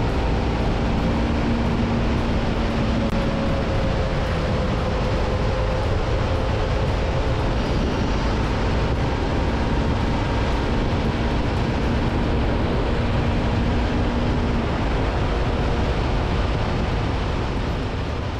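Motorcycle on the road: a steady rush of wind noise over the engine's hum, which shifts slightly in pitch. It begins to fade near the end.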